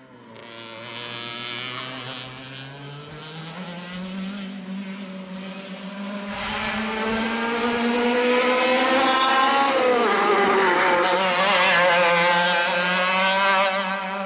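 125 cc two-stroke IAME kart engines running at racing speed. The buzz climbs in pitch as a kart accelerates out of a corner, dips briefly, then rises again. It grows steadily louder and is loudest in the second half as a kart passes close.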